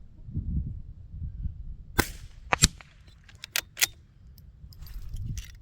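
Two gunshots from the Mark II about two-thirds of a second apart, the second the loudest, followed by several lighter metallic clicks. A low wind rumble on the microphone runs underneath.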